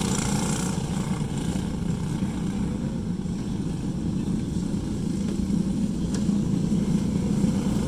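Pack of racing karts running around a dirt oval at some distance, their small engines blending into a steady drone. The higher end of the sound thins out after about the first second as the pack moves away.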